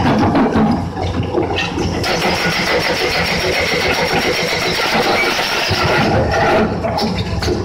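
Excavator-mounted hydraulic rock breaker hammering into quarry boulders with a rapid, even rattle of blows, over a running diesel engine. The hammering is louder and denser from about two seconds in until near the end.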